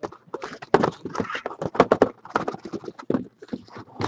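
Hands opening a cardboard box of Panini Select hockey card packs and handling the box and packs: irregular light knocks, taps and rustling.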